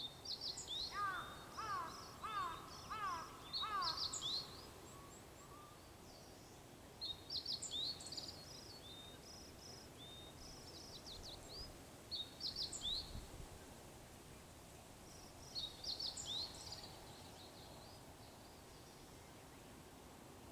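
Small songbirds singing short, high twittering phrases every few seconds, with a crow cawing about five times in the first few seconds.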